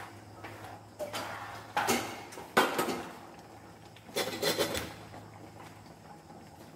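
A wooden-handled spatula stirring and scraping mung bean stew in a nonstick frying pan, in four short bouts of scraping and clatter over the first five seconds.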